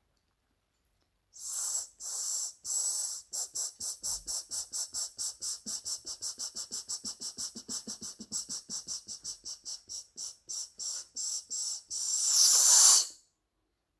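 A woman's rhythmic hissing breath sounds made through the mouth. They start slowly, quicken to about four or five a second, and end in one long, louder hissing breath near the end.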